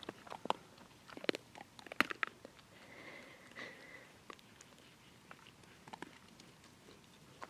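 Irregular footfalls crunching on snow-covered ground, a scatter of sharp steps with the loudest about one and two seconds in.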